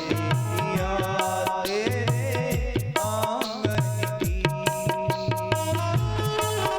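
Instrumental interlude of a Hindi devotional song: a melodic instrument line over a steady hand-drum beat.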